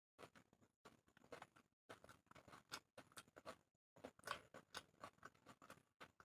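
Faint close-miked chewing of crispy fried onion pakora: irregular crunches and wet mouth clicks in quick clusters, with brief pauses.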